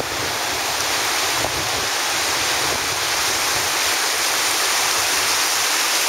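Ocean surf from a storm swell breaking and washing up the beach in a steady, unbroken rush, with wind buffeting the microphone underneath.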